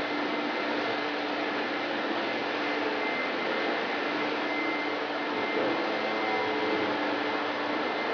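Steady mechanical hum and hiss with faint steady tones running under it, and no distinct events.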